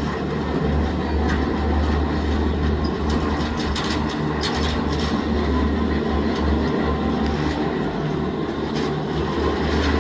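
Steady low mechanical rumble of a marina boat hoist running as it lowers a boat hung in its slings.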